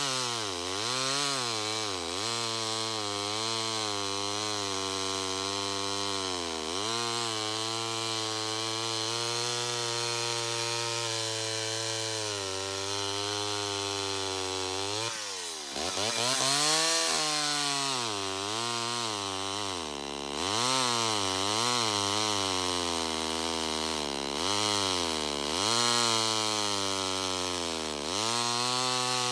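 Homelite XL-12 two-stroke chainsaw cutting through a white oak log. Its engine pitch dips each time the chain bites into the wood and climbs back as it frees up, over and over.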